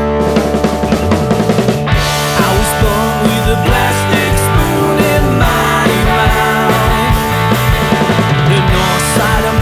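Sixties-style rock band playing: guitar, bass and drums, with cymbals coming in about two seconds in.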